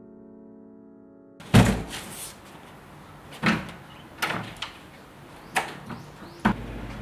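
Piano music cuts off about a second and a half in. Then comes a series of sharp clicks and knocks from a front door's lever handle and latch as the door is opened and shut. The first knock is the loudest.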